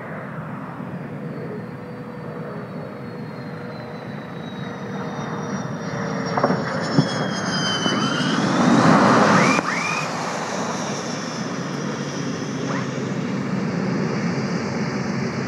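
F-15E Strike Eagle's twin jet engines whining as the jet lands and rolls out. The whine falls in pitch while the noise builds to its loudest a little past halfway. A short knock near the loudest point is the tail hook taking the arresting cable.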